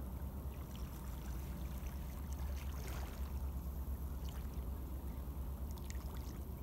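Steady wash of water from the river and falling cold rain, with a low rumble underneath and a few faint ticks.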